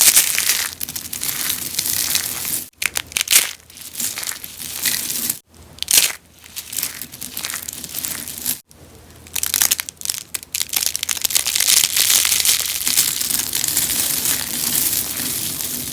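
Rose soap being crunched: a continuous crisp crackling and crumbling, broken by abrupt cuts about every three seconds, with a long unbroken stretch in the second half.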